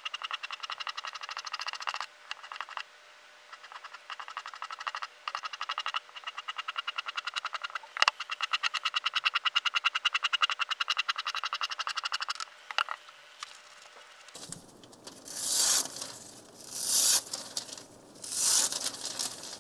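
A serrated bread knife's teeth stroked rapidly with a leather strop, a fast rhythmic scraping with short pauses. From about fifteen seconds in, the knife slices through sheets of paper in three tearing cuts as a sharpness test.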